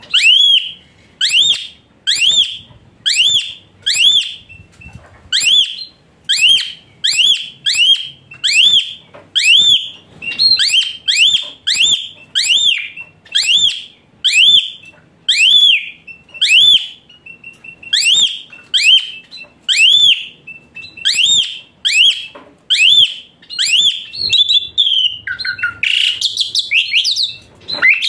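Jalak suren (pied starling) giving a long series of loud whistled calls, about two a second, each note sweeping up and then down. Near the end it breaks into a faster, more varied chattering phrase.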